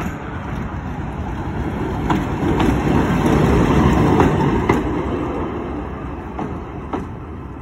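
Double-deck electric tram passing close by, its steel wheels rumbling on the rails, with a few sharp clicks over the rail joints. The rumble swells to its loudest about halfway through as the tram goes past, then fades as it moves away.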